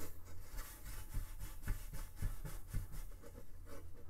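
A steel-wool Brillo pad scrubs back and forth against the flame-out sensor inside a propane torpedo heater, about two strokes a second. It is scouring off the oxidation layer that keeps the sensor from detecting enough heat and makes the heater flame out.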